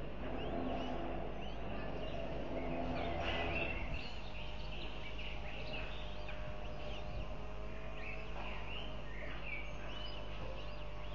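Birds chirping in quick, high, short calls, packed most densely in the middle of the stretch, over a steady low hum.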